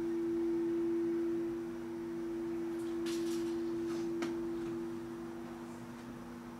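Two steady pure tones from a ringing sound-healing instrument hold and then slowly fade near the end. A few faint clicks come about three to four seconds in.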